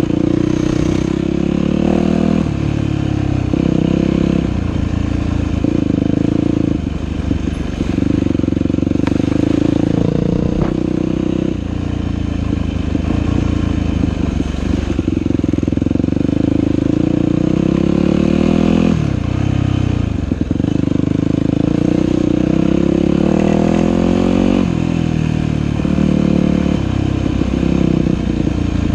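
Dirt bike engine on a trail ride, its pitch climbing and dropping again and again as the throttle is opened and closed.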